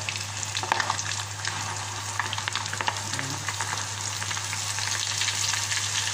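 Breaded chicken pieces deep-frying in hot oil in a small saucepan: a steady sizzle full of small crackles and pops, growing slightly louder.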